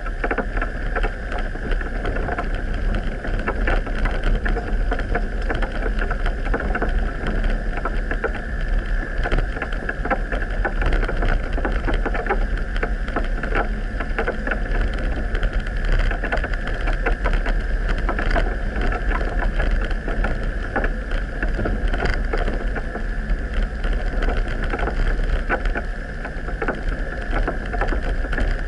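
Vehicle driving slowly along a muddy, rutted forest track, heard from an onboard camera: steady engine and tyre noise with a constant hum, a deep rumble and continual crackling.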